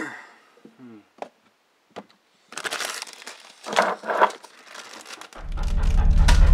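Rustling and crinkling close to the microphone, with a few soft clicks before it. A low droning music bed swells in near the end.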